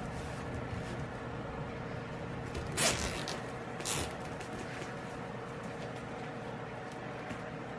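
Two brief rasping swishes about a second apart, over a steady low hum of room noise.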